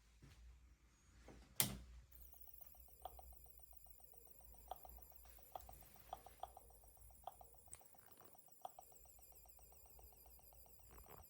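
Faint electronic noise from a Dell B2375dfw laser printer that will not power up: a click about a second and a half in, then a rapid rhythmic buzz with a high warbling whine and scattered faint ticks, a symptom of the fault in its electronics.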